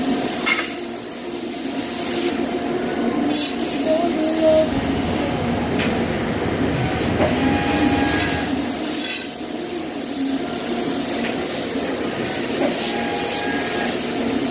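Press brake bending machine running with a steady mechanical hum, with a few sharp metallic clinks as sheet-metal parts are handled against its tooling.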